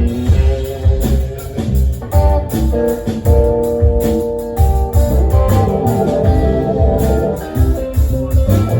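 Live band playing: guitars and bass guitar over a steady beat.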